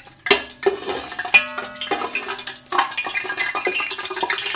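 Metal slotted spatula scraping and clinking against a steel pot, with a brief metallic ring about a second and a half in, while ghee melts and sizzles in the heating pot.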